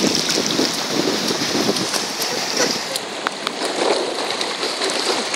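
Steady rush of shallow surf washing over wet sand, with wind on the microphone and small splashes as a toddler wades through ankle-deep water.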